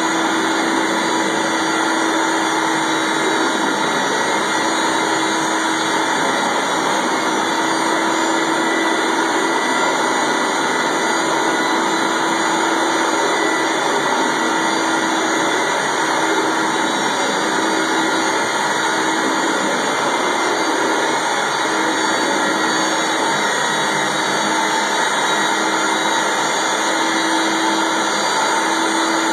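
Rotovac 360i rotary carpet-cleaning wand at work on carpet: the steady rushing roar of extraction suction through the head and hose, with a faint steady hum underneath.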